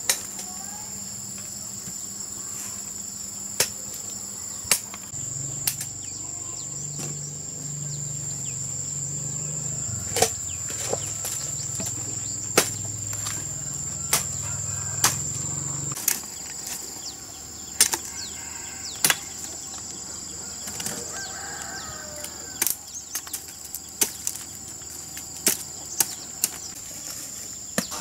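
Sharp, irregular knocks of a machete chopping and breaking dry dead branches, about one every second or two, over a steady high drone of insects.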